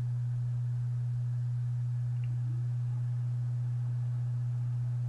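Steady low electrical hum at one unchanging pitch, running under everything on the recording.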